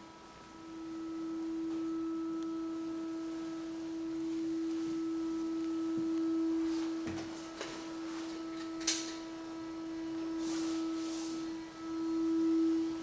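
A steady, pure-sounding held tone with faint overtones that swells back in about half a second in and dips briefly near the end, with a few faint knocks and a sharp click in the middle.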